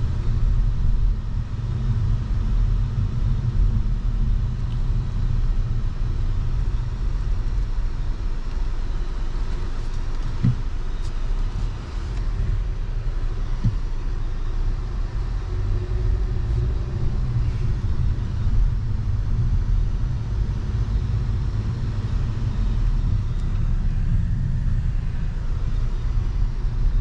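Steady low rumble of a car driving along a road, with tyre and engine noise, and a couple of brief knocks partway through.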